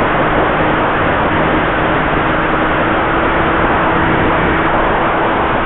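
Steady drone of a home-built foam twin-boom pusher RC plane's motor and propeller, carried under a heavy rush of wind and radio-link hiss. The pitch holds level, swelling slightly near the end.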